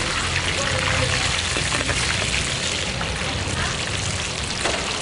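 Hot oil sizzling and crackling steadily as pork is deep fried, with a low steady rumble underneath.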